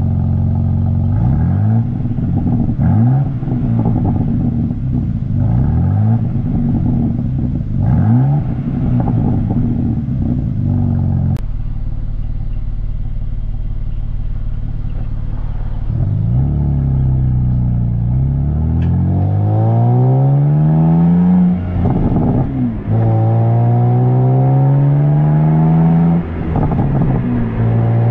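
2023 BMW M2's stock exhaust, heard from beside the tailpipes, with the S58 twin-turbo inline-six revved in a series of quick throttle blips. It then settles to a steady low run before pulling away hard, rising in pitch through the gears with two upshifts.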